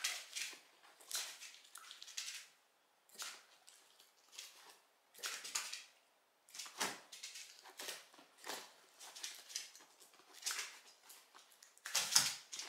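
Small Shiba Inu jumping and pawing at the fabric edge of a sofa, making irregular scuffing and rustling scrabbles about once a second. The loudest comes near the end as the dog leaps at the string.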